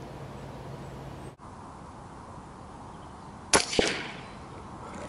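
Moderated Browning T-Bolt .22 LR rifle firing a subsonic round: a sharp, muffled crack about three and a half seconds in, with a second crack and a short fading tail a fraction of a second later.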